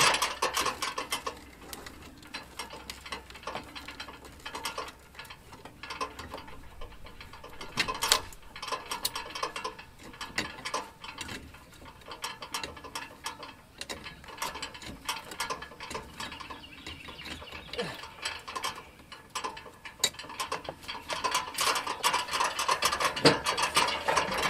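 Irregular clicking and rattling as an overhead internet cable is worked loose from its fittings on a house wall, with a sharp click about eight seconds in and busier rattling near the end.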